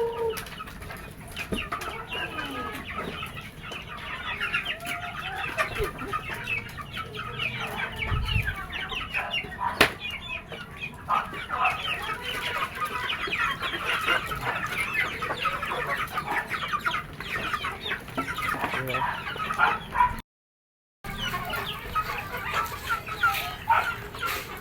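A flock of gamefowl chickens clucking and chirping continuously in a dense chatter of short calls, with one louder pitched call right at the start. The sound cuts out completely for under a second about twenty seconds in.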